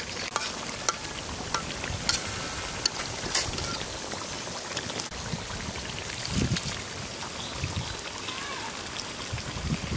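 Chicken curry simmering and sputtering in an iron karahi, with a steel spatula stirring and scraping through the gravy and ticking against the pan.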